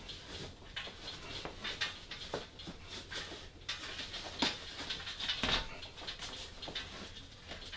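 Nylon fabric and webbing loops rustling and sliding as they are fed round a folding wagon's frame, with irregular light taps and scrapes.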